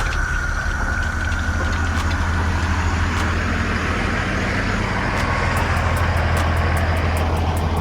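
Heavy truck diesel engine running with a steady low drone. A rushing noise builds over the second half, and a fast ticking comes in near the end.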